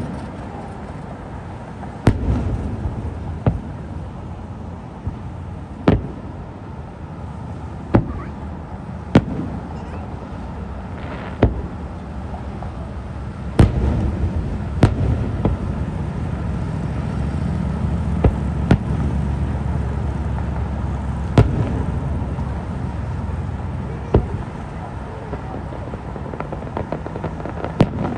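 Aerial firework shells bursting in a display: a string of sharp bangs at irregular intervals, one to four seconds apart, over a low rumble that grows heavier through the middle.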